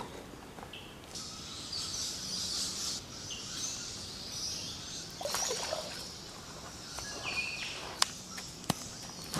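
Birds chirping and twittering against background noise, with a few sharp knocks, two of them near the end.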